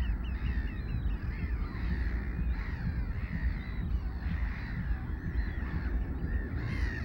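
A crowd of gulls calling at a roost: many short calls overlapping in a continuous chorus, over a steady low rumble.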